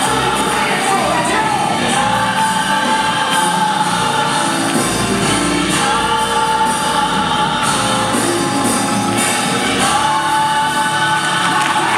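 Gospel song playing loud: sung vocals with choir-style backing over continuous instrumental accompaniment.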